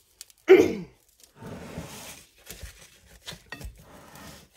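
Gritty crunching and scraping of damp bath bomb mix as a stainless steel mold is scooped through it in a glass bowl and packed by gloved hands. A loud short scrape with a falling pitch comes about half a second in. Later there are a few sharp clicks of the mold being handled and set down.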